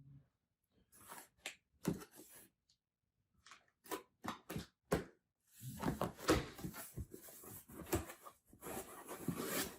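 A cardboard shipping box being opened and handled: scattered knocks and clicks for the first few seconds, then continuous cardboard scraping and rustling from about five and a half seconds in.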